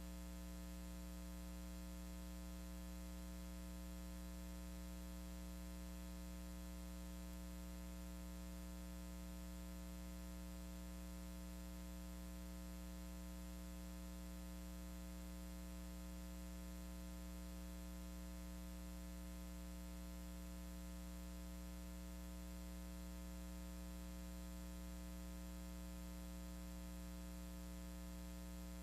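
Steady low electrical hum with a faint hiss, unchanging throughout: the recording's own noise floor, with no sound from the repair work.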